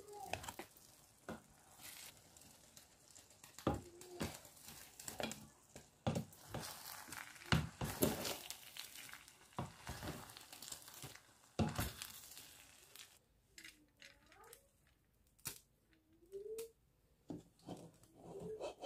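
A spoon scraping and knocking in a stainless steel pot as cooked rice is stirred and scooped, with crinkling of aluminium foil. The clatter is busiest in the first two-thirds and thins to a few light clicks near the end.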